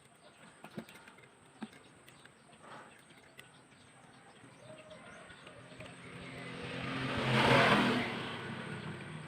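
A vehicle passing by: its sound swells to a peak about seven and a half seconds in, then fades. A few faint clicks come before it.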